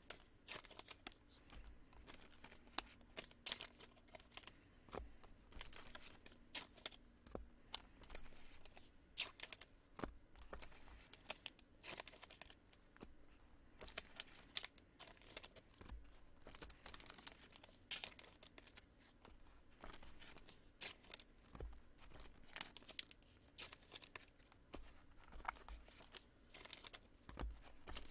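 Trading-card packs being torn open by hand: quiet, irregular ripping and crinkling of the wrappers, with cards being handled.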